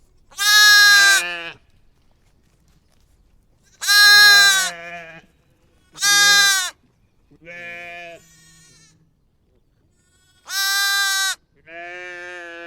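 Sheep bleating: six separate, wavering baas with pauses between them. Four are loud and close, and two, about seven seconds in and near the end, are fainter.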